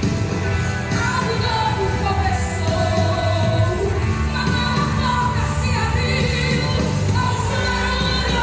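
Contemporary Christian worship song: a singer's voice over a full band with a steady bass line.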